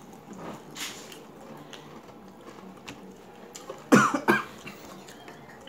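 A person coughs in a short, sharp double burst about four seconds in, set off by spicy chilli sauce while eating.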